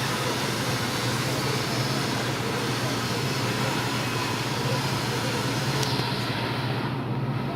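Walk-behind floor scrubber running steadily: a continuous motor hum under an even hiss of brushes and suction, with the hiss thinning briefly near the end.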